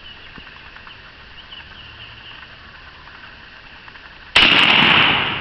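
A single shot from a Stoeger 12-gauge shotgun firing a full-power load about four seconds in: a sudden loud blast that dies away over about a second.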